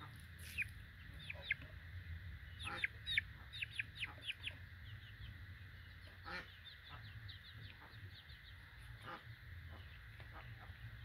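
Young Bangkok gamecock chick peeping: quick runs of short, high, falling cheeps, busiest a few seconds in and thinning out afterwards.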